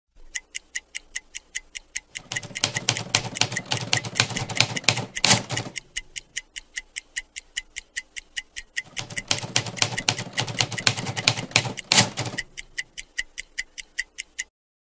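Rapid, even ticking at about five or six ticks a second. Twice a deep rumble swells in under it and ends in a sharp hit, once about five seconds in and once about twelve seconds in. The ticking cuts off just before the end.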